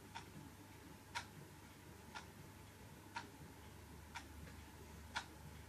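Quiet clock ticking about once a second, the ticks alternating louder and softer in a tick-tock pattern.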